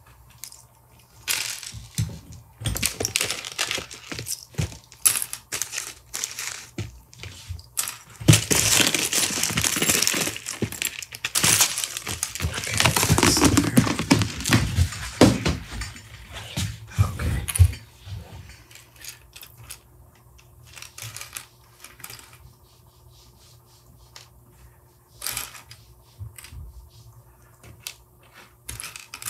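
Small 3D-printed plastic crown pieces clicking and clattering as they are picked through by hand, with a denser stretch of rummaging in the middle that thins to occasional clicks near the end.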